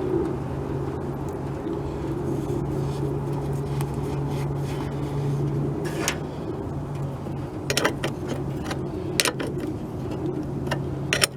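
Sharp metal clinks of a wrench working on battery cable terminals: one about six seconds in, a few more around eight and nine seconds, and a cluster near the end. A steady low hum runs underneath.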